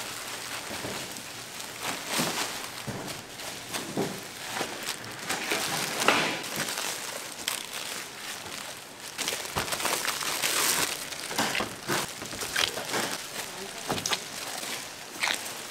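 Irregular crinkling and rustling handling noise with many scattered sharp clicks and knocks.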